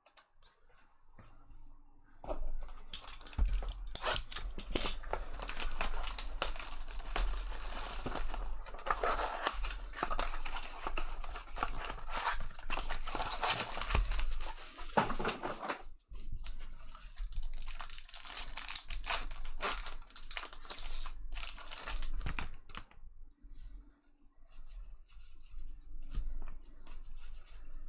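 Baseball card pack wrappers being torn open by hand, with crinkling of the foil and plastic. The tearing starts about two seconds in and is busiest in the first half, then gives way to lighter, patchier rustling.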